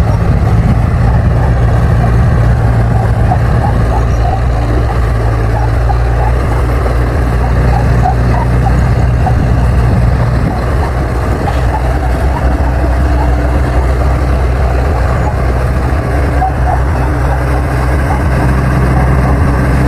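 Komatsu D60 bulldozer's diesel engine running steadily under load while it pushes soil, with short squeaks scattered throughout.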